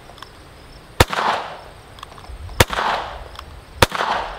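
Hi-Point CF380 .380 pistol fired three times, about a second and a half apart, each shot trailing off in an echo.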